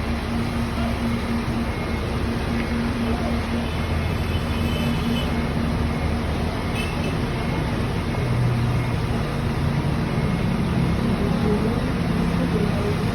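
Steady roadside traffic noise with the low, even hum of a bus engine running close by; a second, deeper engine note joins about eight seconds in.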